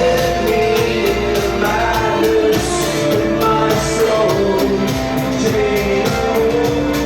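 Live band music played loud: a sung melody with held notes over sustained instrumental chords and a steady beat.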